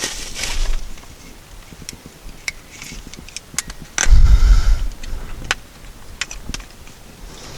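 Handling of a new LED headlamp and its packaging: scattered small clicks and rustles, with one heavy low thump about four seconds in.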